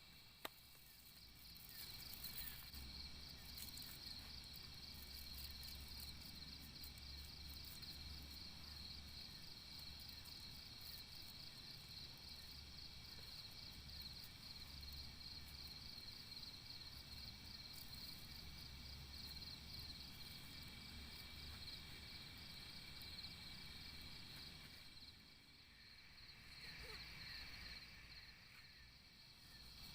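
Faint, steady high-pitched insect chorus with a fast, even pulse, with a single sharp click about half a second in.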